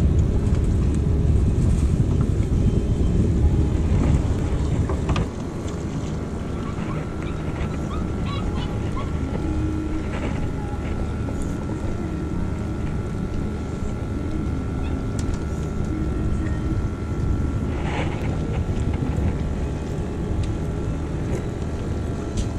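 Boat's outboard motor running, throttled back about five seconds in and running on more quietly.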